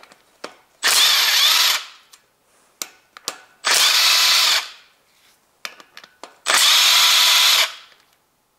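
Cordless power driver with a socket spinning out camshaft bearing-cap bolts on a Toyota 2ZZ-GE cylinder head. It runs in three short bursts of about a second each, with small metallic clicks between them as the socket is moved from bolt to bolt.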